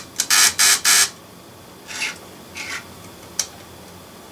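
Small electric motor of a 00 gauge 0-6-0 model locomotive running in uneven spurts on the track: three loud bursts in the first second, then fainter, shorter ones. The rough running is put down by the owner to worn motor brushes that need replacing.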